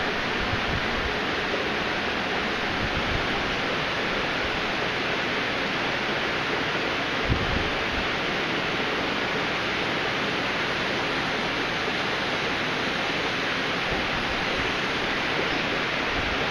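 Steady rush of splashing water from aquarium filtration running into a fish tank, with a soft low bump about seven seconds in.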